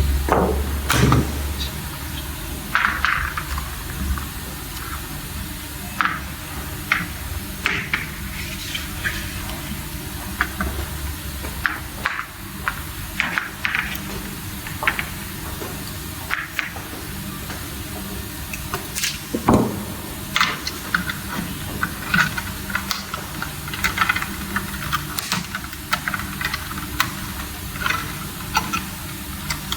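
Scattered small clicks, taps and scrapes from wires and a tool being worked into the terminals of DIN-rail circuit breakers. These sit over a steady hiss, with a low hum for the first ten seconds or so.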